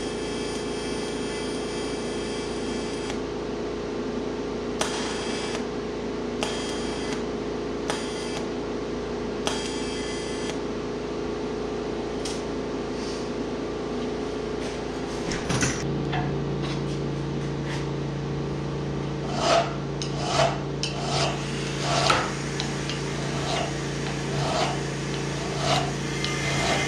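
Hand file strokes working a steel Pullmax die, relieving the die's bead profile, over a steady hum that changes about halfway through. In the last several seconds comes a run of sharper strikes, about one a second.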